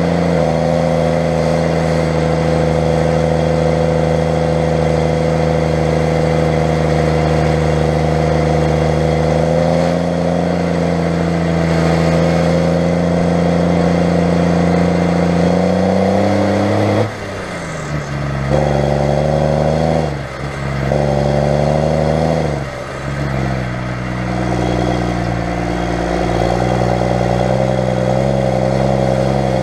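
The Cummins diesel engine of a JCB Fastrac 3230 tractor runs steadily under load while towing a grain trailer. About two-thirds of the way through, its note and loudness drop sharply three times over a few seconds, then it settles back to a steady run.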